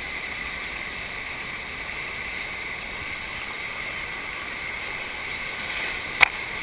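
Steady rush of water pumped over a FlowRider-style standing sheet wave, with one sharp click about six seconds in.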